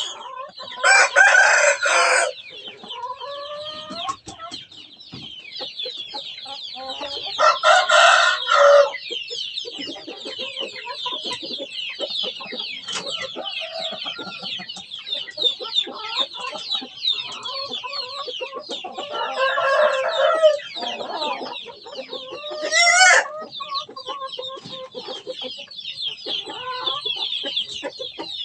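Rooster crowing loudly several times: about a second in, around eight seconds and around twenty seconds, with a sharp call near twenty-three seconds. Softer clucking comes between the crows, over a steady high buzz.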